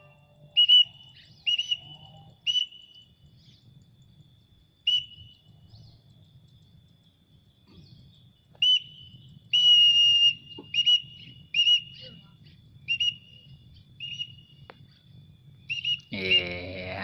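Short, high whistles repeated irregularly, about a dozen in all, most brief and one held for about half a second. A louder, fuller sound comes near the end.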